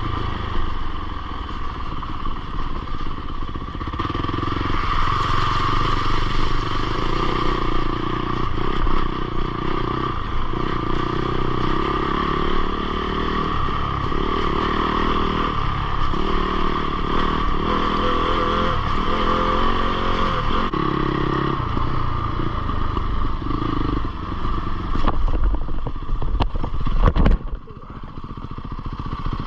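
Fantic Caballero 500 Rally's single-cylinder four-stroke engine running while the bike is ridden off-road, its note shifting up and down as the throttle is worked. Near the end come a few knocks and a clatter, and then the sound drops off sharply.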